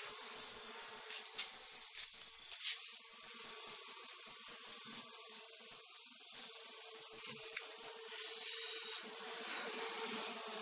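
A cricket chirping in an even, rapid pulse, about six or seven chirps a second, over the steady low hum of a honey bee colony in an opened hive box.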